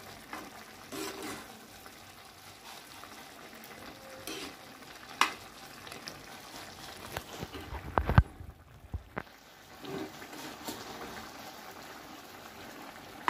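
Vada curry simmering and sizzling in a pan while a slotted metal spoon stirs it, with scattered scrapes and knocks of the spoon on the pan; the loudest knock comes about eight seconds in.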